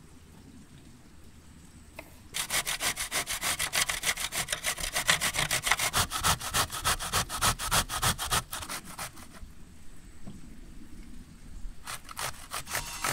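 Zucchini being grated on a stainless-steel box grater: quick rasping strokes, about four a second. They start a couple of seconds in, stop for about three seconds past the middle, and resume near the end.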